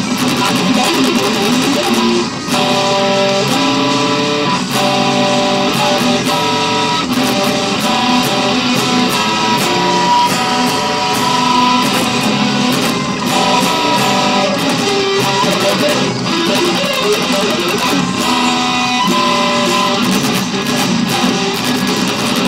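Electric guitar playing a fast progressive metal instrumental, with dense note runs and held notes.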